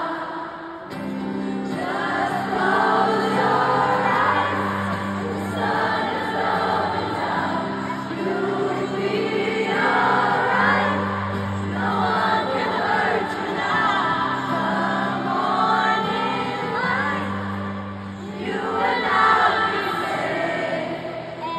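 Live acoustic guitar and solo female singing through a stadium sound system, with a large crowd singing along.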